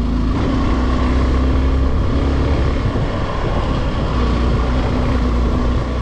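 Motorcycle engine running steadily under way up a climb, its note holding nearly constant with slight shifts in pitch, over a steady rushing noise.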